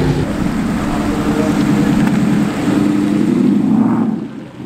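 Ford Mustang V8 engines running at low speed as the cars pull slowly past one after another, a steady low engine note with tyre hiss on wet tarmac. The sound drops away near the end.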